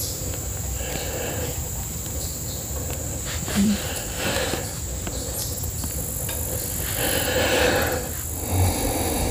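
Steady high-pitched insect drone, like crickets in summer grass, with intermittent rustling of small dry sticks being handled to feed a small wood fire. A brief low tone sounds about three and a half seconds in.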